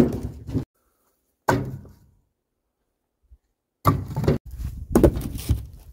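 Birch firewood rounds thrown into a steel dump trailer, landing with heavy thunks and knocks: one at the start, another about a second and a half in, and a clatter of several near the end.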